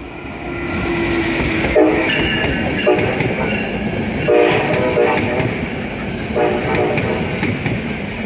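SEPTA Regional Rail push-pull train passing close by at speed, with loud wheel rumble and clatter that swells as the locomotive arrives. Several brief tonal sounds come and go over the rumble.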